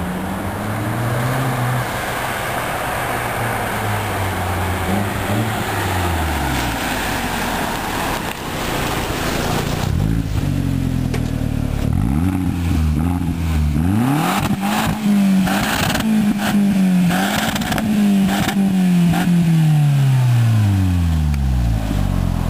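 Audi TT 1.8T turbocharged four-cylinder engine through a NAP stainless-steel cat-back exhaust, rolling off at low revs with gentle rises and falls. From about halfway through it is blipped repeatedly, a string of short revs rising and falling.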